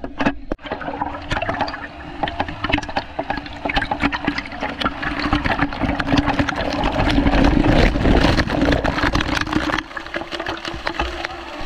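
Foam machine spraying: a steady hum under a dense, wet, spattering hiss that builds and then drops off suddenly near the end.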